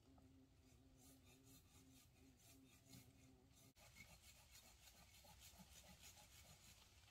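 Near silence, with a faint, quick rhythmic scratching at about four or five strokes a second that stops abruptly about halfway through.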